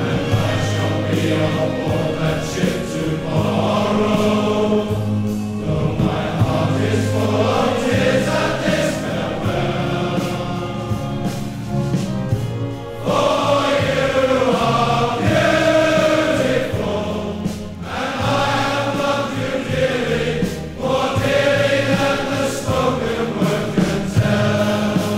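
A men's chorus of sailors singing a slow song together over steady low accompaniment.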